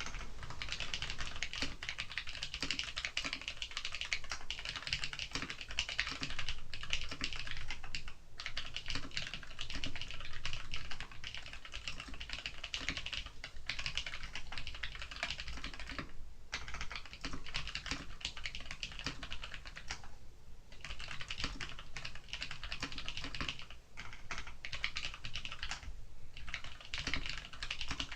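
Continuous fast typing on a WASD CODE 87-key mechanical keyboard with tactile Cherry MX Clear switches and low-profile ABS keycaps, set on a 6 mm desk mat: a dense stream of key clacks, with a few short pauses.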